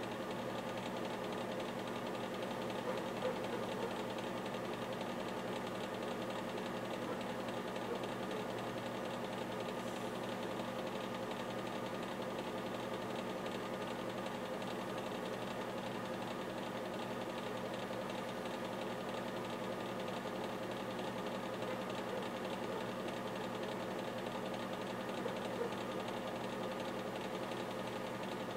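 A machine's motor running with a steady, even hum of several held tones.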